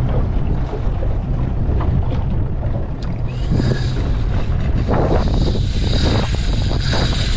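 Wind buffeting the microphone over open sea, with water moving against the hull of a small boat. From about three seconds in a steady high hiss joins, with a few short scuffs near the middle.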